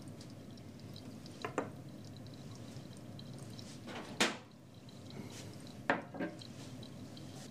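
A few light clicks and knocks of glassware and a wire test-tube rack being set down on a wooden lab bench, the sharpest about four seconds in and two more close together around six seconds, over a faint steady hiss.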